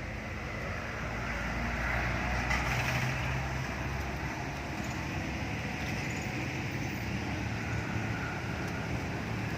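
Steady low engine rumble with outdoor background noise, swelling slightly about two seconds in.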